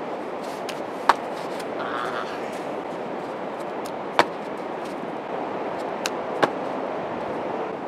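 Steady wash of surf and wind at the shore, broken by four sharp taps. The first comes about a second in and the third about six seconds in, where feet land from backflips on the sand.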